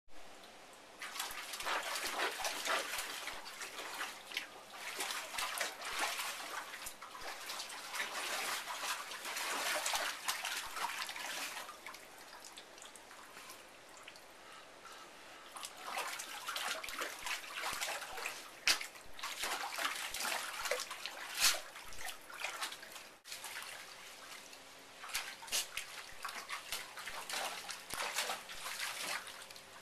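Bull terriers splashing and sloshing water in a kiddie pool, in uneven bouts with a quieter few seconds midway. Two sharp knocks stand out about two-thirds of the way through.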